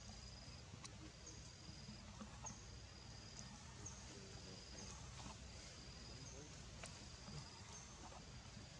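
Faint, high, thin animal call repeating roughly every second and a quarter, each a short higher note followed by a held steady whistle, over a low steady rumble.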